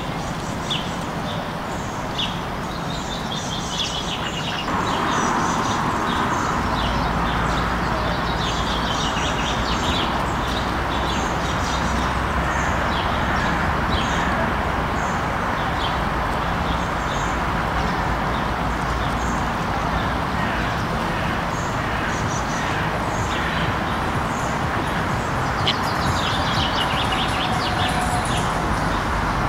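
Small songbirds chirping in short, scattered calls over a steady background rumble. The rumble grows louder about five seconds in.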